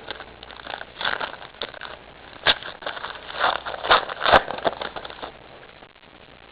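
Handling of trading cards and their packaging: a string of scrapes, crackles and sharp clicks. The loudest clicks come about two and a half and four seconds in, and the sounds die down after about five seconds.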